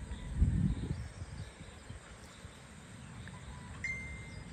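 Outdoor evening ambience of low wind rumble on the microphone, with a brief louder gust buffeting it about half a second in. Faint bird chirps are scattered through, and near the end a bird gives one clear, level whistle lasting under a second.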